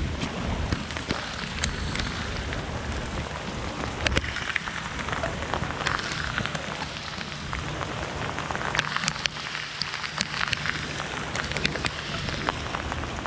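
Steady rain falling in a storm, with sharp ticks of single drops striking close by scattered throughout.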